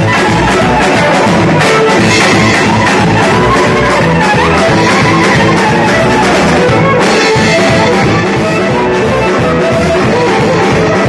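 Loud music with instruments and a drum beat.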